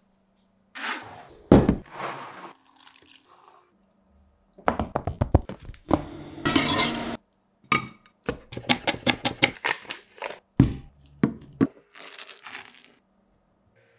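Close-up kitchen prep sounds: many short knocks, clinks and scrapes with silent gaps between them. About five seconds in, a stack of sliced bread lands on a wooden cutting board. Near the end, a wooden spoon knocks and scrapes cream cheese into a ceramic bowl.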